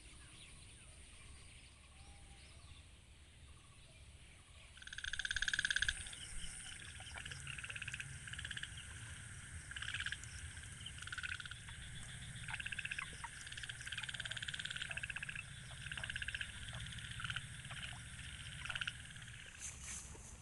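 Frogs calling: repeated short trains of rapid pulses, starting about five seconds in and going on through the rest, over a steady high hiss.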